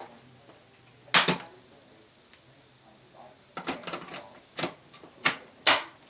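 Sharp plastic clicks and knocks from the Hoover Air Cordless vacuum's body and dust canister being handled: one loud knock about a second in, then a quick run of clicks and three more single sharp clicks in the last two seconds.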